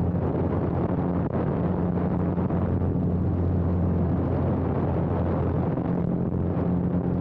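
Single-engine biplane's engine and propeller droning steadily under a heavy rush of wind over the outside-mounted camera. The hum weakens for a few seconds in the middle and comes back strongly near the end.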